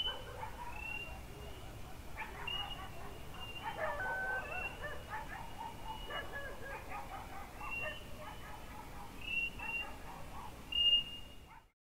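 Faint animal calls: distant barking with short high chirps recurring about once a second over a low rumble, cutting off suddenly near the end.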